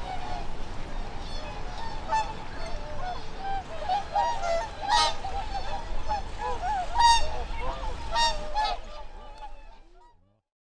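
A flock of swans calling, with many overlapping honking calls. The calls fade out shortly before the end.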